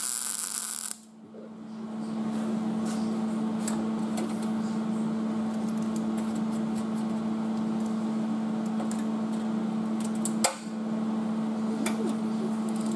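A MIG welder's arc crackling for about a second as a plug weld goes into the steel rocker panel, then cutting off. After it, a steady low hum, with scattered light metal clicks as locking pliers and clamps are handled, and a sharp knock about ten seconds in.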